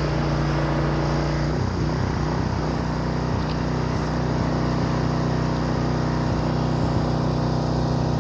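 Pressure washer engine running steadily under load. About a second and a half in, its tone shifts and wavers briefly before settling again.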